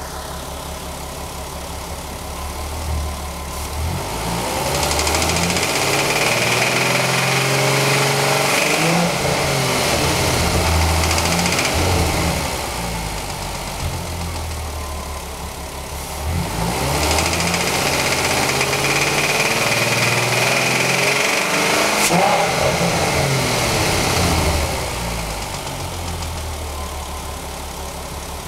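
Turbocharged VW VR6 engine idling, then revved up and held twice for about eight seconds each before dropping back to idle. Its knocking is what the owner takes for rod knock.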